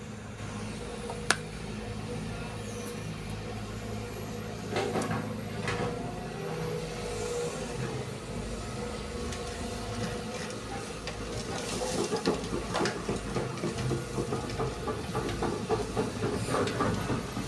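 Diesel engines of heavy earthmoving machinery running steadily during sand loading, with a sharp metallic knock about a second in. Clattering and scraping grow busier in the second half.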